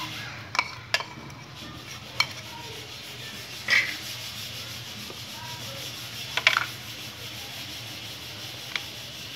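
Steady rushing hiss of a gas burner under a clay cooking pot, with sharp clinks of a metal spoon on a bowl as ginger-garlic paste is scraped in near the start, and a few more sharp clinks later, the loudest about four and six and a half seconds in.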